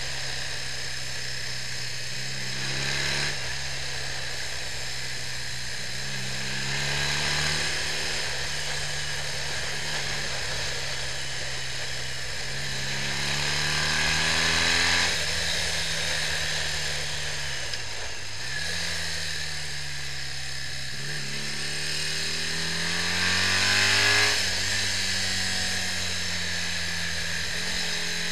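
BMW R65 air-cooled flat-twin motorcycle engine riding on the road, its pitch rising under acceleration and dropping sharply at each gear change, about four times, with one easing off and pick-up about two thirds of the way through.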